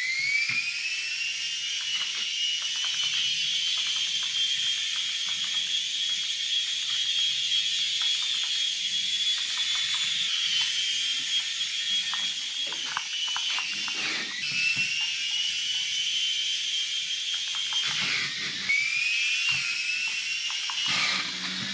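Small electric motor of an Air Hogs Moto Frenzy RC toy motorbike whining at a high pitch. It rises as it spins up, holds steady, and dips in pitch about 14 and 18 seconds in, with scattered clicks and knocks as the bike runs.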